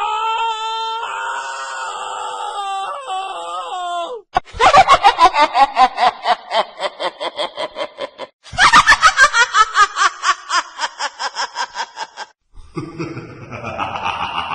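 Horror sound effects: a long, wavering high-pitched scream for about four seconds, then two runs of loud, rapid evil laughter, each fading away, and a noisier effect begins near the end.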